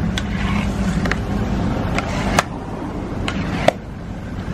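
Long metal spatulas knocking and scraping against a large wok while stirring a thick curry filling, about six sharp clinks over a steady low hum.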